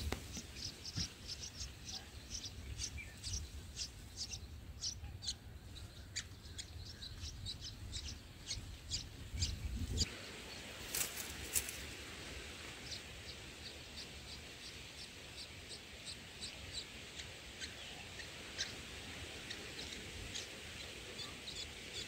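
Red-whiskered bulbul nestlings begging for food: a rapid run of short, high chirps, several a second, over a low rumble that stops abruptly about halfway through.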